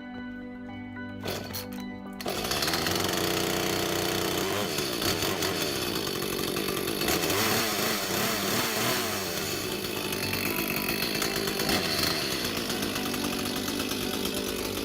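Echo CS-310 two-stroke chainsaw starts up about two seconds in and runs through the cut, its engine pitch wavering as it is revved, while cutting tree branches. Background music plays under it.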